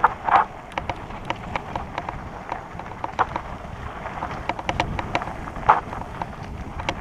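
REI Co-op 2.1 hardtail mountain bike rolling over rough singletrack: a dense, irregular run of clicks and rattles from the bike over the bumps, with tall grass brushing past in a few louder swishes and low wind and tyre noise underneath.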